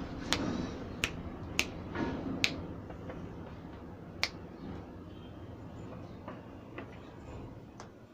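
A handful of sharp clicks or knocks, about six, irregularly spaced and strongest in the first two and a half seconds, over a low background noise that slowly fades.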